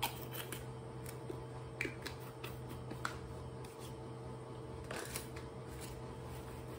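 Scattered light clicks, taps and rustles of hands handling a small plastic bottle with a blue cap and patting together, the sharpest click right at the start, over a steady low electrical hum.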